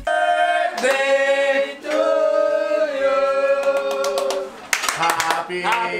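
Men singing together in long held notes, with a few hand claps near the end.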